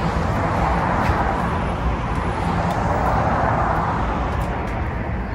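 Road traffic: a passing vehicle's noise swells and fades over a few seconds, over a steady low rumble.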